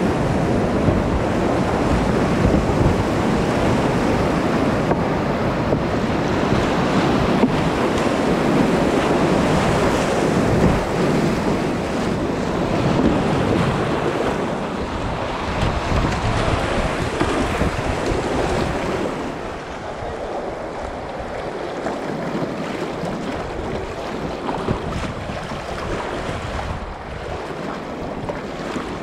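River rapids rushing and splashing close around a kayak running through them. About twenty seconds in, the rush drops to a softer flow as the kayak reaches calmer water.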